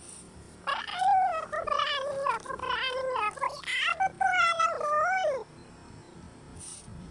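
A woman's voice raised very high in pitch by a voice effect, a squeaky run of quick talk from about a second in until about five and a half seconds.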